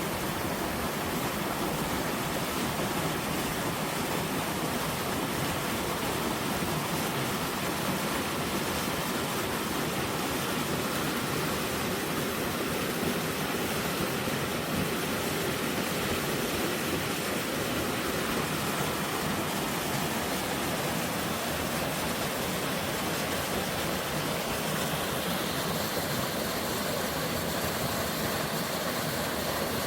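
Mountain valley stream rushing steadily, carrying spring snowmelt.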